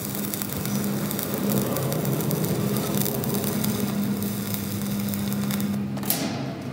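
Stick (arc) welding on steel sheet: the electrode's arc crackles and sizzles steadily over a low steady hum, then stops about six seconds in.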